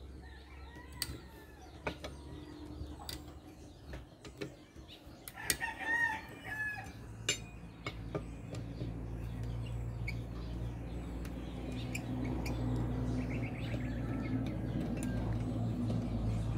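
A rooster crows once about five and a half seconds in, over scattered sharp metal clicks from a ratchet wrench being worked on an alternator. A low steady hum builds through the second half.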